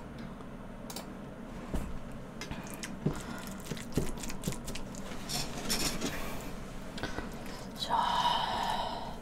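Silicone spatula stirring and scooping rice in a wide stainless-steel plate: soft clicks, taps and wet food sounds, with a louder scrape against the metal near the end.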